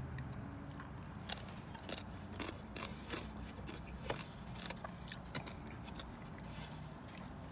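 Scattered sharp clicks and scrapes from fingers handling a small metal Fritos can, over a steady low hum.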